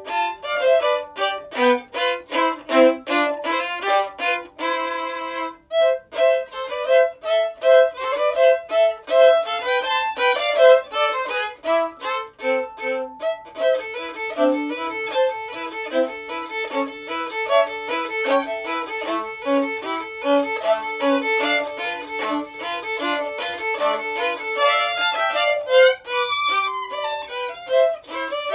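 Solo violin played with the bow: a running melody of many short separate notes, with a few longer held notes among them.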